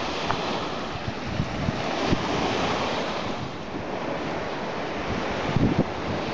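Sea surf washing steadily, with wind buffeting the microphone in low gusts, a few stronger ones near the end.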